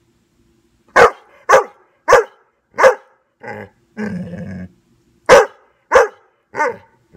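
Newfoundland dog barking, about seven loud single barks at uneven intervals, with a softer bark and a short, rough, lower grumble in the middle.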